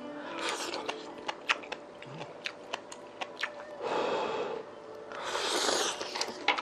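Close-miked eating sounds: wet chewing with many sharp mouth clicks and smacks. There is a breathy burst about four seconds in as he blows on hot food, and another longer airy burst about a second later.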